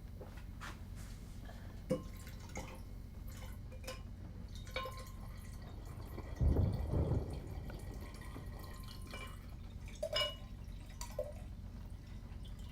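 Water dripping in a small room: scattered single drops, each a short plink, with a louder dull thump about six and a half seconds in.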